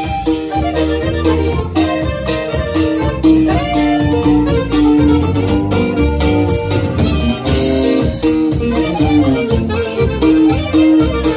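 Norteño band playing live and instrumental: button accordion and alto saxophone carry the melody over a drum kit and a steady bass line.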